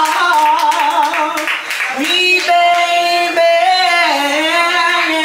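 A voice singing a melody, holding long notes that waver and slide in pitch.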